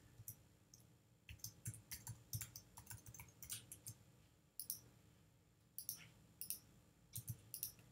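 Faint, irregular clicks of a computer keyboard being typed on, with a few mouse clicks among them; the keystrokes come in a quick run over the first few seconds, then sparser clicks follow.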